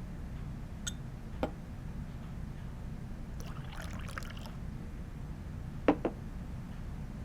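Steady low hum with a few scattered light clicks and knocks, and two sharp knocks in quick succession about six seconds in, the loudest sounds here.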